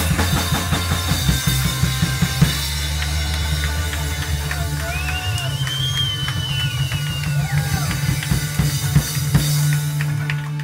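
Live rock band playing: drum kit with bass and electric guitars over steady low notes. A high note slides up and back down in the middle. Near the end the drums and cymbals stop while the low chord keeps ringing.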